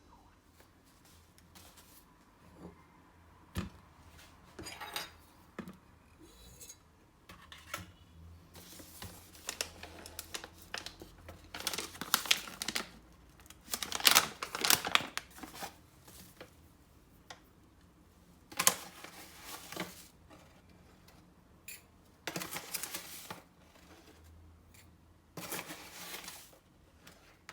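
Hands handling things at a kitchen counter: an irregular run of rustles, scrapes and clinks with a few sharp knocks, loudest about halfway through.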